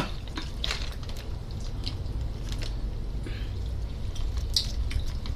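Eating sounds: hands pulling apart a whole roast chicken and mouths chewing it, heard as scattered small wet clicks and smacks over a low steady hum.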